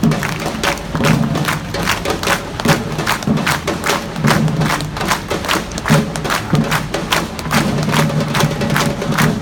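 Samba-reggae drum band playing: deep bass drums beat under quick, even, sharp strikes of snares and higher drums, several a second.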